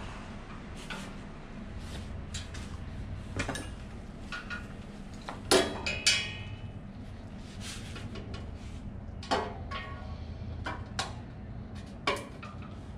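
Scattered metallic clinks and knocks of a screwdriver and steel parts working on a snow blower's steel chute mounting bracket during assembly, with two loud clanks just past midway, the second ringing briefly, over a steady low hum.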